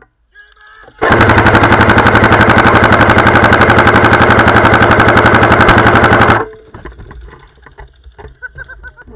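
Airsoft gun firing one continuous full-auto burst of about five seconds: a loud, fast, even rattle that starts about a second in and cuts off suddenly.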